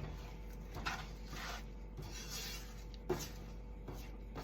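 Spoon stirring rice mix and water in a saucepan: a few faint, short scraping strokes.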